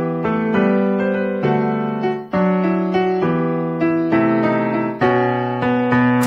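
Background music: keyboard chords held and changed every second or so.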